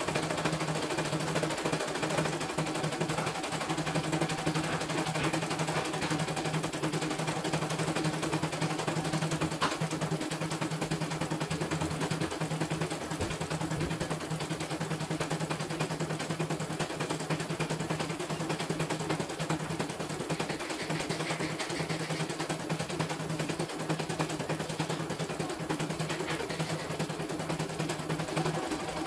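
CNY E900 computerized embroidery machine stitching a design: a rapid, steady clatter of needle strokes over a low motor hum.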